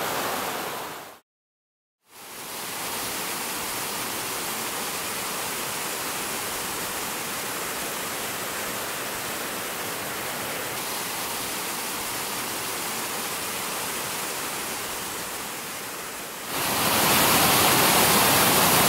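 Small woodland waterfall rushing into a plunge pool: a steady wash of water noise. It cuts out briefly about a second in and returns, then becomes louder near the end.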